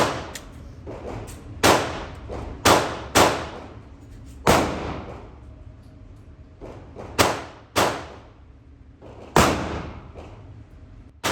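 Gunshots at a shooting range: about eight sharp reports at uneven intervals, each followed by a short echoing tail.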